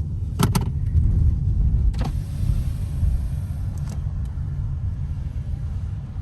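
Low steady rumble of a car, heard from inside the cabin as it rolls slowly, with a few sharp clicks about half a second and two seconds in.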